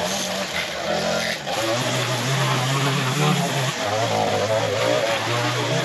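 Echo SRM-225 two-stroke string trimmer running under load, its engine speed shifting up and down with the throttle as the line cuts overgrown grass.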